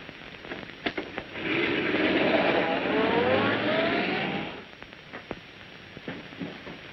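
Taxi cab engine speeding up as the car pulls away, its pitch rising for about three seconds before it fades out, after a couple of sharp knocks.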